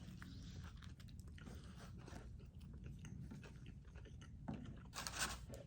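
A man chewing a mouthful of fried chicken sandwich, with faint crunches and small mouth clicks. A short, louder rush of noise comes near the end.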